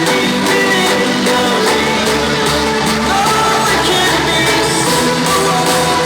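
Loud hardstyle dance music played over a festival sound system: a steady heavy bass with a sustained synth melody and a sung vocal line.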